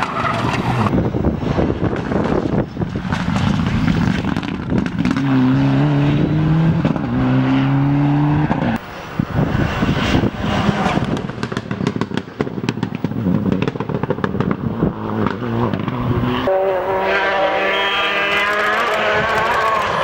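Rally cars driven flat out on a tarmac stage, one after another, engines revving hard with the pitch climbing in steps through quick gear changes. About the middle comes a run of sharp cracks, and near the end a car's engine climbs high through the revs.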